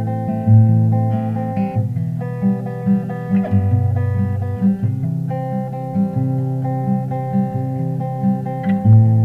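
Background music: a steadily strummed and plucked acoustic guitar with a bass line.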